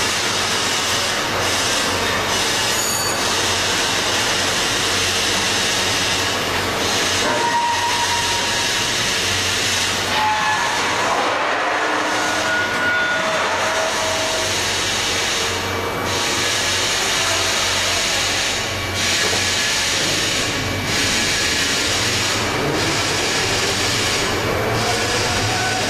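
Steady mechanical running noise of a CNC beam-punching line for lorry chassis beams: a continuous low hum under an even hiss, with no distinct punch strokes standing out.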